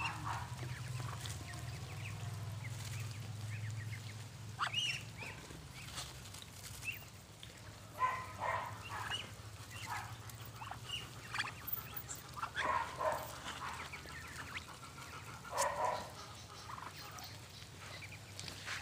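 A flock of Muscovy ducks giving short scattered calls, more often in the second half, over a low steady hum that fades after the first few seconds.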